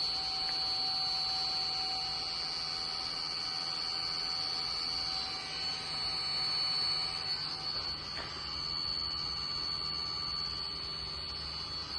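Servo motor driven by a Yaskawa Sigma-7 SGD7S servo drive running steadily on a bench test, giving a steady high-pitched whine with fainter lower hum tones.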